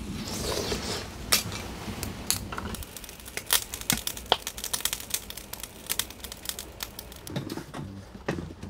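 Objects being handled at close range: crinkling and rustling, then a run of sharp clicks and taps, thickest in the middle.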